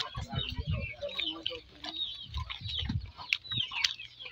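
Chickens clucking and chirping, with many short calls overlapping.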